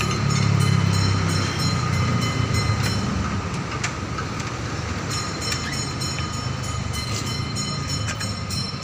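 Fire truck engine running steadily, a low hum that is strongest in the first second or so, with a few faint clicks.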